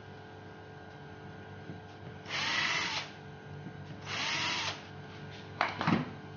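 Cordless drill/driver running in two short bursts, each under a second, driving screws through a concealed cabinet hinge into the door. A few sharp knocks follow near the end.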